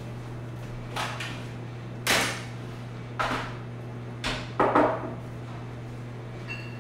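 Kitchen clatter: about five sharp knocks and bangs of cookware and cabinets over a few seconds, the loudest about two seconds in, over a steady low hum. A faint short ring sounds near the end.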